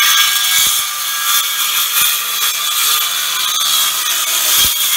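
Kobalt 24V brushless circular saw cutting through a wooden board, a loud, steady whine of the blade under load that stops abruptly near the end.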